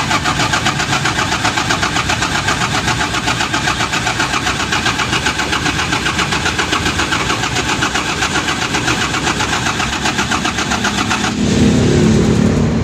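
Mitsubishi 6M70 inline-six diesel engine being cranked by its starter motor for about eleven seconds without firing, an even, fast-repeating cranking that stops about eleven seconds in: the engine's hard-start fault.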